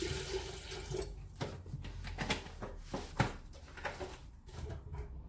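Tap water running into a kettle and shut off about a second in, followed by a few scattered knocks and clicks of the kettle being handled.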